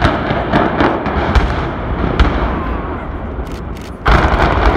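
Explosive demolition charges bringing down a power station boiler house: a rapid series of sharp bangs over a low rumble. A second loud burst of bangs comes about four seconds in.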